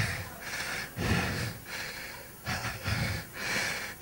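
A man laughing breathily into a handheld microphone, in a series of short bursts without words.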